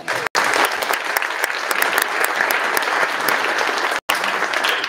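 Audience applauding: steady clapping that starts at once, runs with two brief dropouts in the recording, and begins to fade at the very end.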